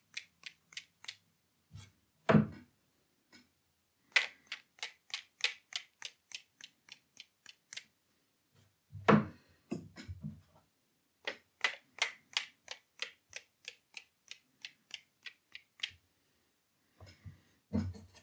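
A paintbrush is tapped over and over to splatter watercolour paint onto the paper. The taps come as runs of sharp clicks, about four a second, broken by a few heavier knocks.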